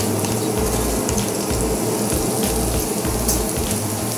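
Chilli paste frying in hot oil in a pan, a steady sizzling hiss; the chilli is being cooked through before the turmeric goes in. A low repeating beat of background music runs underneath.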